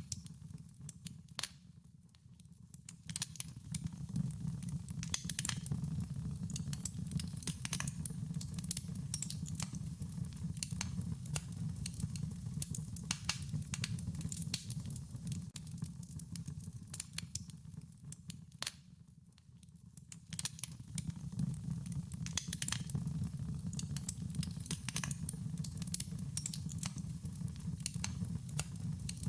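Wood fire crackling, with frequent sharp pops and snaps over a steady low rumble. The crackling thins out and quietens briefly twice, about two seconds in and again about nineteen seconds in.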